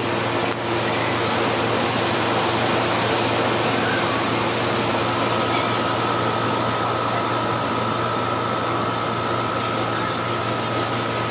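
Steady mechanical rushing noise with a low hum running under it; a faint high whine joins about five seconds in.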